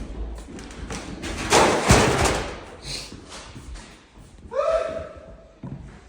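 A heavy thud with a noisy crash about two seconds in, then a short held pitched sound near the end.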